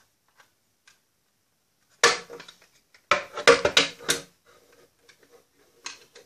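Hard plastic Play-Doh toy parts being handled and knocked together on a table: one sharp clack about two seconds in, then a quick run of clattering clicks for about a second, and another knock near the end.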